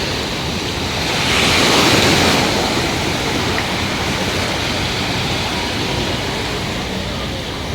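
Sea waves breaking on the shore, a steady wash of surf that swells about a second and a half in, with wind on the microphone.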